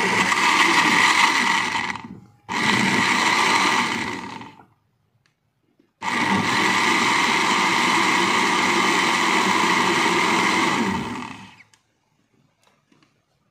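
Countertop blender puréeing milk with leaves, cucumber, ginger and pear, run in three goes: about two seconds, a brief break, about two seconds more, a pause, then about five seconds. Each run starts sharply and winds down as the motor is switched off.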